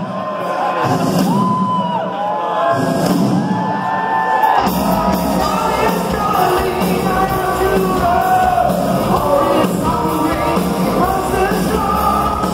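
Glam metal band playing live with a singer: the vocal first comes over thin accompaniment with a few high cymbal-like hits, then bass, drums and guitars come in together about four and a half seconds in and the full band plays on under the singing.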